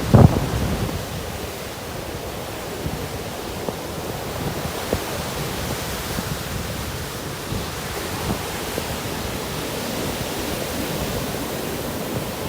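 Steady rush of ocean surf breaking and washing up a sandy beach, with sea breeze.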